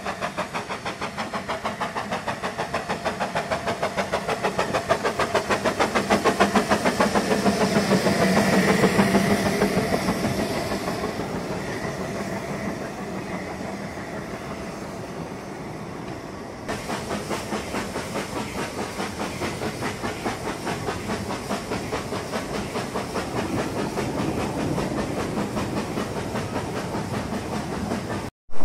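Narrow-gauge Hunslet steam locomotive Blanche working a train with steady, rhythmic exhaust beats, growing louder as it draws near and fading as the carriages roll past. After a sudden change about halfway through, the rhythmic chuffing and rail noise continue, heard from aboard the moving train.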